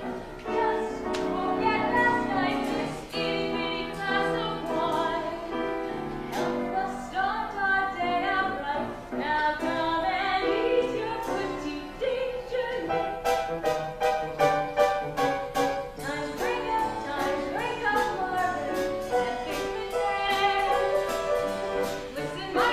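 A woman singing a musical-theatre song with instrumental accompaniment, recorded live from the stage, with a run of crisp rhythmic ticks in the accompaniment a little past the middle.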